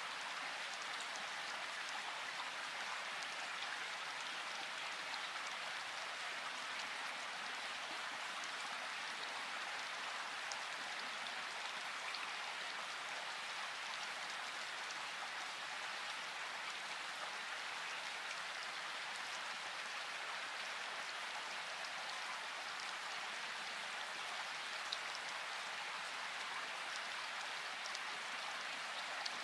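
Steady rain sound: an even hiss with faint, scattered drop ticks, unchanging throughout.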